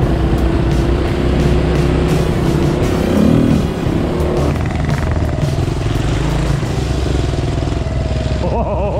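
Off-road motorcycle engines running at low trail speed, the camera bike's engine steady close by and a Kawasaki KLX 250 dual-sport alongside. One engine revs up briefly about three seconds in.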